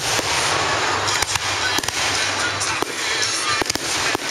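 Aerial fireworks going off in quick succession: repeated sharp bangs of bursting shells over a dense, continuous crackling hiss.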